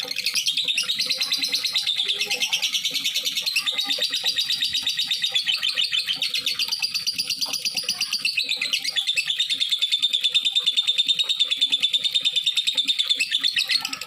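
Lovebird singing a long, unbroken chatter: a fast run of high chirps in the drawn-out 'ngekek' style of a bird in full song.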